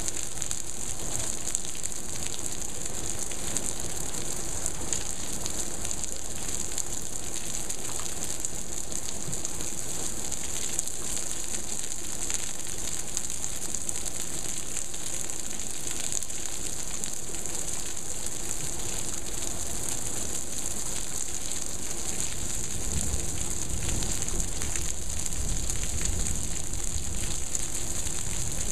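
Heavy monsoon rain pouring steadily, splashing on pool water and paving. A low rumble swells in the last few seconds.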